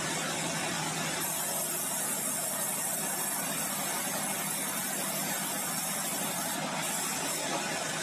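Band sawmill machinery running steadily: a constant mechanical drone with hiss over it.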